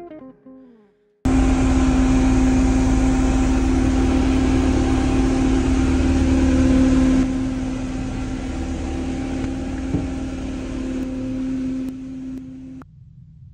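Fishing boat's engine running below deck: a loud, steady drone with a strong hum and low rumble, which drops somewhat in level about halfway through and cuts off abruptly near the end. It follows the fading tail of guitar music.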